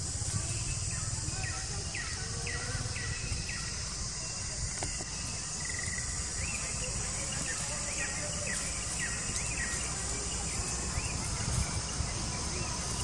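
A steady high-pitched insect drone, with a run of short high chirps over the first ten seconds and a low rumble underneath.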